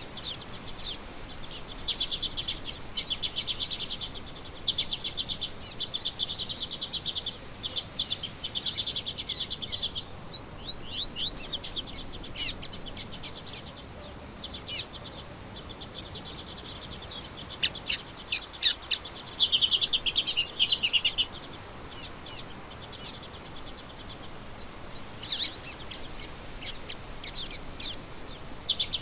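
Songbirds singing: repeated rapid trills lasting a second or two each, with sharp high chirps and short whistled notes in between.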